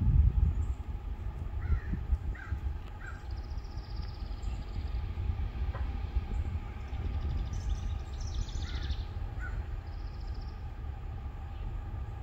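Crows cawing a few times in two short groups, with a smaller bird singing higher in between, over a steady low rumble from a distant diesel freight train approaching.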